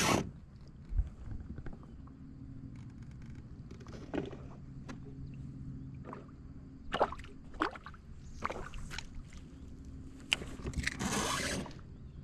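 Fishing kayak moving on the water: water washing and sloshing along the hull over a steady low hum, with scattered scrapes and knocks and a louder rush about eleven seconds in.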